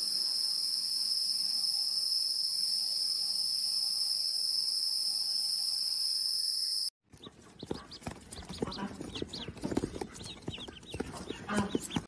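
A steady, high-pitched drone for about seven seconds that cuts off abruptly. Then chickens in a poultry house: scattered scratching and pecking clicks with a few soft clucks.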